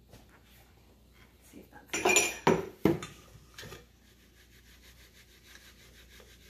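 Metal sieve and mixing bowl clanking together in a quick cluster of sharp knocks about two seconds in, with one lighter knock after. Near the end there is faint rubbing as the flour is shaken through the fine sieve.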